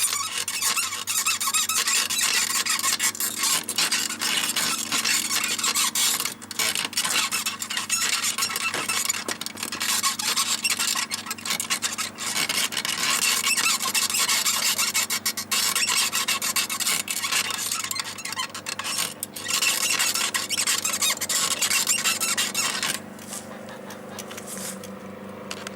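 Small rebuilt Mifa bicycle saddle squeaking loudly under a rider's moving weight: a continuous rapid squeaking and rubbing. The squeaking stops near the end, leaving a low steady hum.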